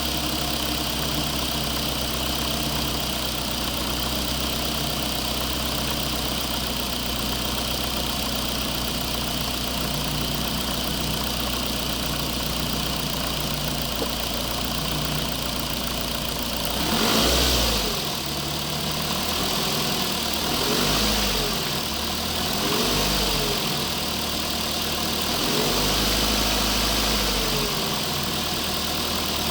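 Engine-like running of RC construction machines: a steady idling drone, then from a little past halfway a louder swell and several shorter rises and falls in pitch as the machines work.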